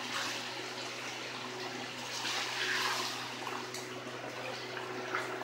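Chicken korma masala with freshly added yogurt sizzling and bubbling in a steel karahi as it is stirred with a wooden spoon, during the frying-down (bhunna) stage. The sizzle swells for a moment a couple of seconds in, over a steady low hum.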